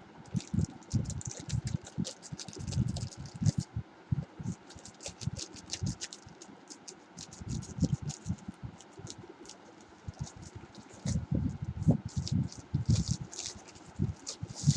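A paper-wrapped parcel being cut open with scissors and unwrapped by hand: a dense, irregular run of rustles, clicks and light knocks.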